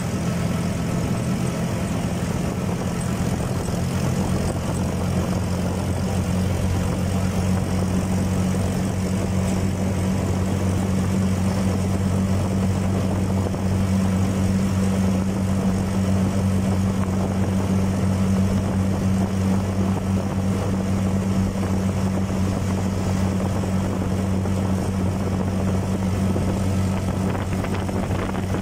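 Small engine of a motor rickshaw running steadily at cruising speed: a constant low drone, with road noise over it.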